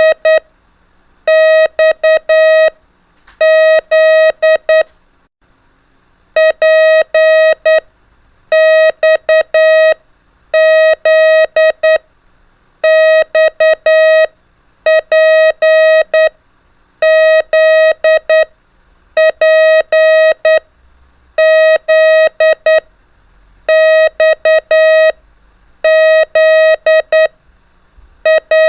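Morse code practice tone: a single steady beep keyed on and off in dots and dashes, spelling the letters P, X and Z over and over, one letter after another with short gaps between them.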